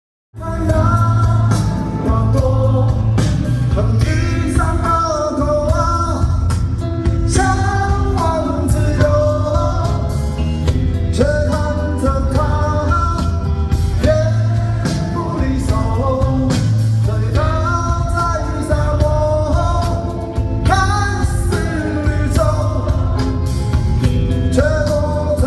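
A live rock band playing a song, with a lead vocal over guitar, heavy bass and drums. The music cuts in suddenly about half a second in.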